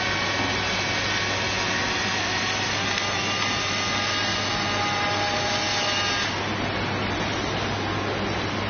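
Electric motors and ducted fans of a radio-controlled model hovercraft running steadily on water: a steady whirring hiss with a low hum and several high whining tones that drift slowly in pitch. The highest whine fades out about six seconds in, as the craft turns.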